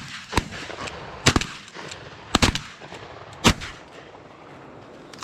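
Several shotgun shots fired in quick succession at a flushed pheasant, about a second apart, the loudest about three and a half seconds in.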